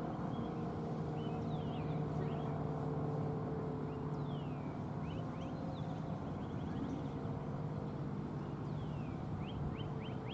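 A low, steady vehicle rumble with a hum, fading a little after the middle, under songbirds chirping. The birds give a few falling whistles and small runs of short rising chirps, the last run near the end.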